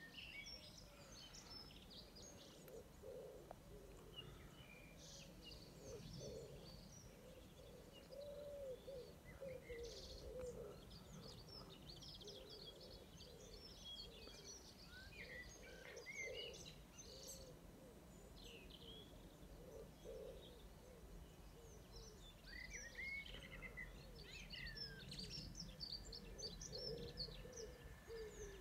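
Outdoor birdsong: small birds chirping and twittering, with a pigeon cooing over and over underneath. A faint steady high tone comes in near the end.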